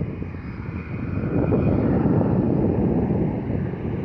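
Jet airliner engines on the runway: a low rumble that swells about a second in and holds.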